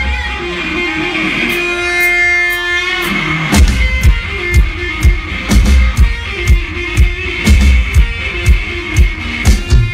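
Live rock duo playing an instrumental passage: distorted electric guitar alone at first, then the drum kit comes in about three and a half seconds in with a steady beat of kick drum and cymbals.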